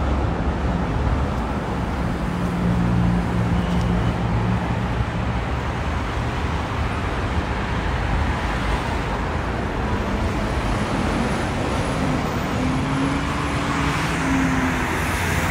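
Steady city street traffic noise, with the low hum of a passing vehicle's engine rising twice, once near the start and again near the end.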